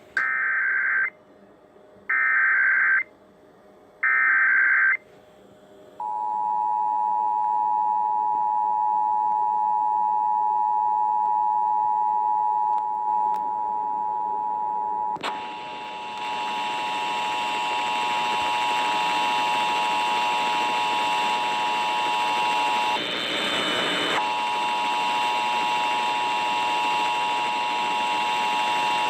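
Emergency Alert System test signal: three one-second bursts of SAME header data, then the steady two-tone attention signal. About halfway through it jumps to a hissier relay of the same two-tone signal, which breaks off briefly near the end.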